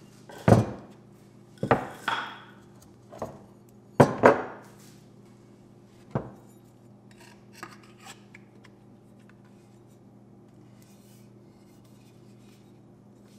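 A steel axe head and tools being set down and shifted on a wooden workbench: about six solid knocks with short scrapes over the first six seconds, then a few light taps and handling sounds.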